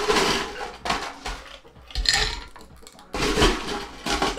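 Ice cubes clattering into a glass of cocktail mix in three bursts, a long one at the start and two shorter ones about two and three seconds in.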